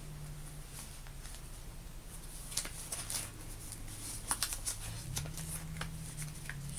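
Faint handling noises, light clicks and rustles like paper or photographs being moved, starting a couple of seconds in, over a low steady hum.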